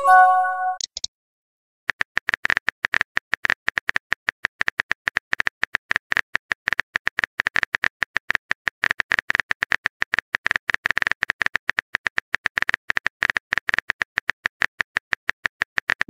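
Chat-app sound effects: a short message-pop chime in the first second, then rapid, uneven phone-keyboard typing clicks for the rest, as a long text message is typed.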